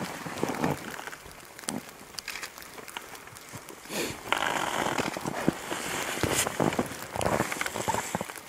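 Irregular rustling and crackling of nylon shell jackets and gloves as people shift close around the microphone, with a louder stretch of rustling about four seconds in.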